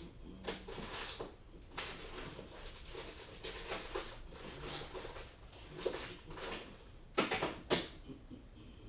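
Hands rummaging through small parts, with irregular rustling and clattering and two sharp clacks about seven seconds in, the loudest sounds.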